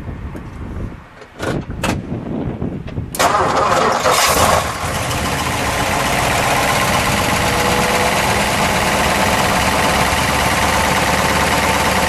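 1955 Ford Thunderbird's 292 cubic-inch Y-block V8 being started. After two short clicks, the engine catches about three seconds in and runs fast and loud for a moment, then settles into a steady idle.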